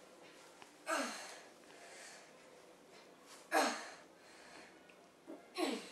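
A boy's breathing: three sharp, forceful breaths about two to three seconds apart, each one falling away quickly.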